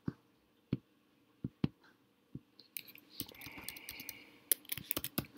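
Computer keyboard and clicks: a few separate clicks spaced out over the first couple of seconds, then a quick run of key taps from about three seconds in as a word of text is deleted and retyped.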